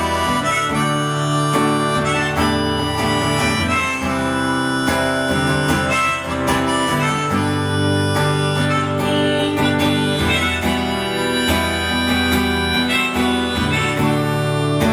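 Harmonica playing a solo over acoustic guitar accompaniment during the instrumental break of a live folk-rock song.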